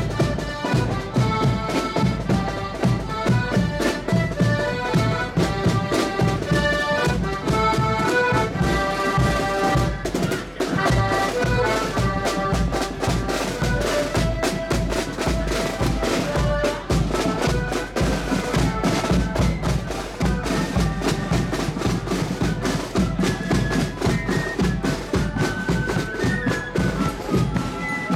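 Marching accordion band playing a march tune, the accordions carrying the melody over snare drums and a bass drum keeping a steady beat. In the second half the drums come to the fore and the melody thins.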